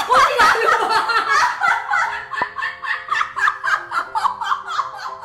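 Two women laughing hard and helplessly, in rapid high-pitched bursts several times a second.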